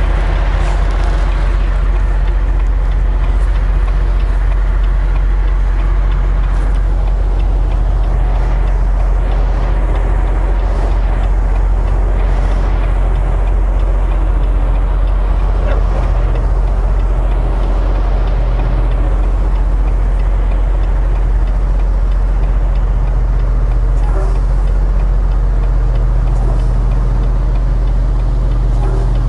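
Semi truck's diesel engine running steadily at low speed, a deep even drone heard from inside the cab.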